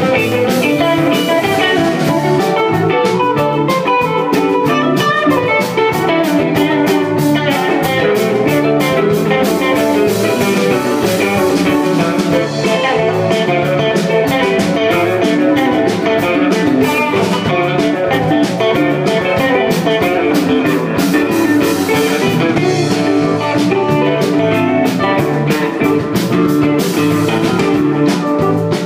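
Live band playing a rock jam: electric guitars over a drum kit, bass and electric keyboard, with a steady beat.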